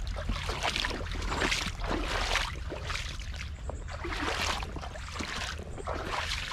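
Rubber boots wading through shallow creek water, splashing and sloshing with each step, roughly once a second, over a constant low rumble.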